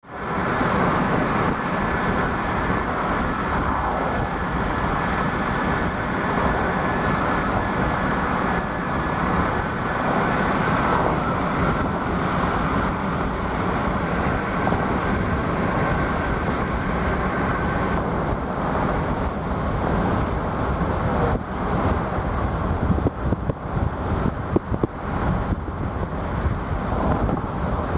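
Steady road and wind noise of a vehicle driving at highway speed, heard from inside the cabin. Several sharp taps come through in the last few seconds.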